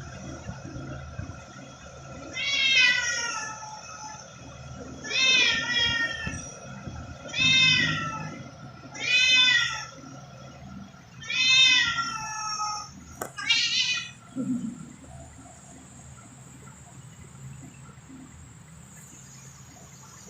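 A domestic cat meowing six times, about once every two seconds, each meow about a second long and falling in pitch at the end. There is a single sharp click just before the last meow.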